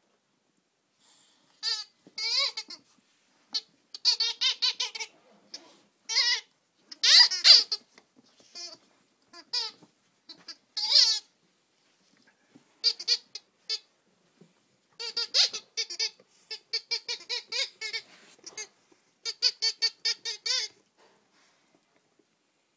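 Rubber squeaky pig toy squeaking over and over as a dog bites on it, in quick runs of short, high squeaks with brief pauses between runs.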